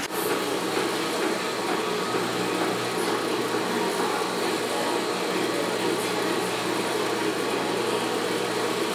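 Industrial sewing machine running steadily, a constant motor hum with even machine noise.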